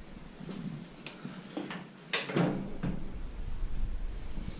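Fridge door being opened and handled: a few knocks and clicks, the strongest about two and a half seconds in, followed by a low rumble.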